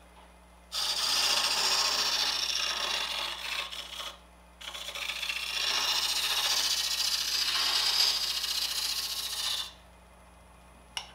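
Negative rake scraper with a rolled burr shearing fine shavings off a spinning wood turning on a lathe: a steady hissing scrape in two long passes, with a short break about four seconds in.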